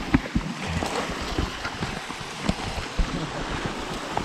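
Rushing mountain stream water as a steady hiss, with a series of short, low thumps and knocks scattered through it.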